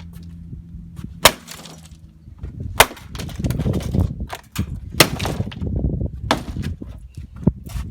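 A circuit board being smashed: five sharp blows at uneven intervals, with cracking and crunching of the breaking board in between.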